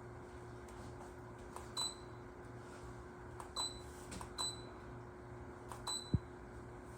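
Low-profile DC ceiling fan running steadily with a low hum, while several short high-pitched chirps come and go and a brief low thump sounds near the end.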